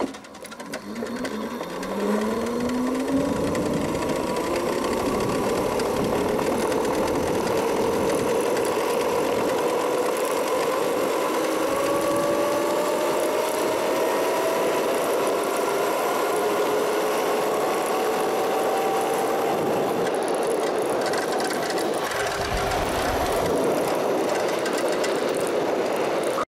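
Razor E300 electric scooter's motor, run on 48 volts through a 500-watt controller, whining under acceleration. The whine climbs in pitch over the first several seconds and then holds fairly steady at speed, over wind and road noise. Near the end the whine briefly fades under a low rumble.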